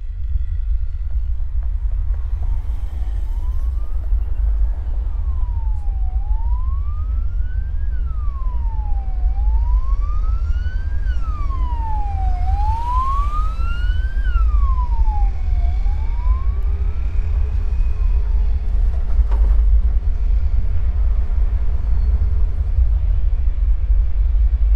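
An emergency vehicle's siren wailing up and down, about one rise and fall every three seconds, over a steady low rumble of traffic. The siren is loudest about halfway through and fades out about two thirds of the way in.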